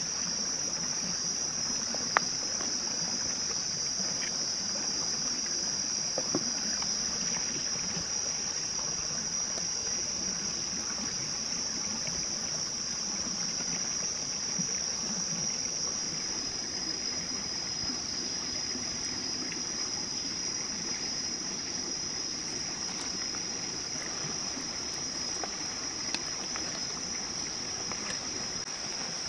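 Insects buzzing steadily in one high, even band, with a few scattered sharp clicks over it.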